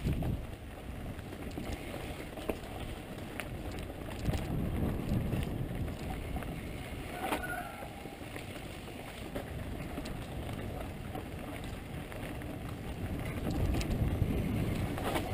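Mountain bike riding down a rough dirt singletrack: wind buffeting the microphone, tyres rolling on dirt, and the bike rattling over bumps with scattered knocks. A short squeak about seven seconds in.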